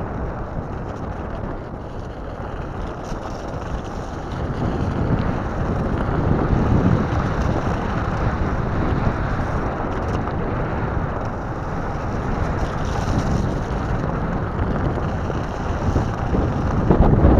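Rumble and crunch of an off-road electric skateboard's pneumatic tyres rolling over wet gravel and dirt, with wind buffeting the microphone. The rumble grows a little louder about five seconds in.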